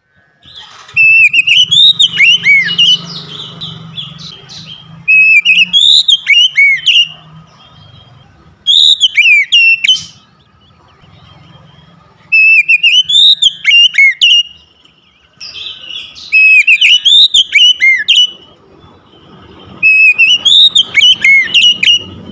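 Oriental magpie-robin singing loudly in repeated phrases of sweeping whistled notes that rise and fall. There are about six phrases, each a couple of seconds long, with short pauses between them.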